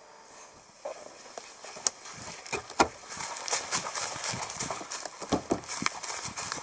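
Footsteps crunching on a dry forest path: irregular crackles and clicks that start about a second in and grow denser.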